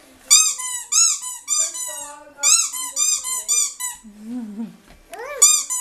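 Rubber squeaky toy squeaked over and over, about three squeaks a second, each one rising and falling in pitch. There is a short break a little after the middle, filled by a brief low sound, before the squeaking starts again near the end.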